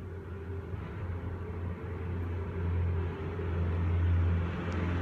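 A low, steady rumble that starts abruptly and swells gradually in loudness, the lead-in to the dance music playing over a speaker.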